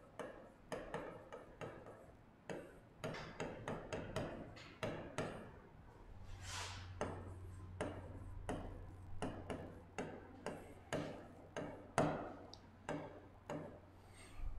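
A stylus tapping and scraping on an interactive touchscreen board during handwriting: a string of faint, irregular clicks, several a second. A faint low hum comes in about halfway through.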